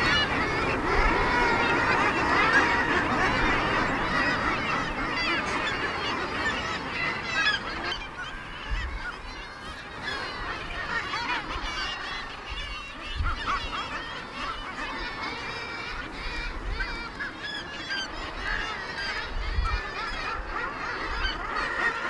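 Seabird colony calling: many birds calling over one another, busiest in the first several seconds and thinner from about eight seconds in.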